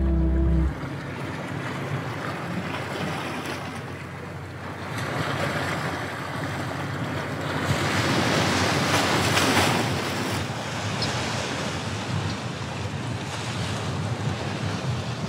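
Sea swell washing and surging against a rock ledge, with wind buffeting the microphone; the wash swells louder for a couple of seconds about eight seconds in.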